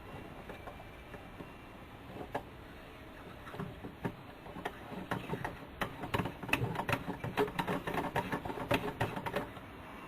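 Light clicking and tapping of hands and small hardware working an oil pressure gauge into its mounting in an instrument panel: a few scattered clicks at first, then a quick, busy run of clicks from about four seconds in that stops near the end.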